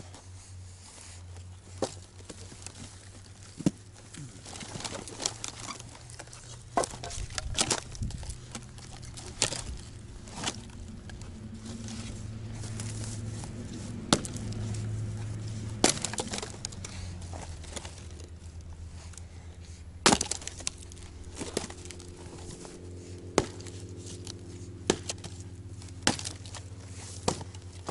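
Fiskars short-handled splitting axe chopping and splitting cedar rounds: a series of sharp chops and cracks, one every second or two, as the wood splits apart. A low steady hum runs underneath.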